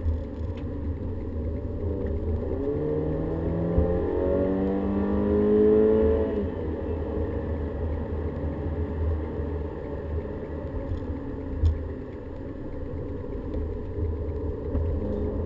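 Volkswagen Golf GTI engine heard from inside the cabin under acceleration: its pitch rises steadily for a few seconds, then falls away about six seconds in, over a constant low road rumble. Two short sharp knocks stand out, one about four seconds in and one near twelve seconds.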